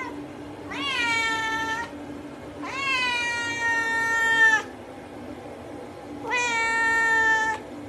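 A wet cat in a bathtub meowing: three long, drawn-out meows, each swooping up at the start and then held, sliding slightly down. The middle one is the longest and loudest, about two seconds.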